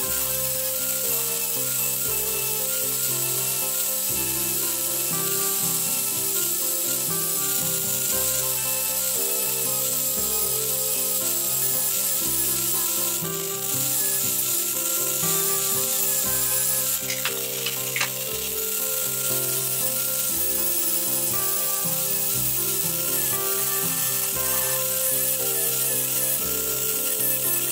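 Background music over the steady hiss of a small electric angle drill's sanding disc rubbing across thin wooden frames, with a few light clicks a little past the middle.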